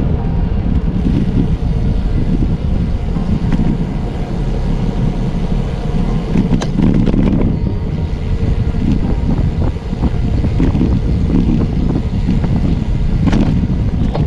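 Wind buffeting the camera's microphone while cycling at speed, a loud, uneven low rumble, with two brief knocks about seven seconds in and near the end.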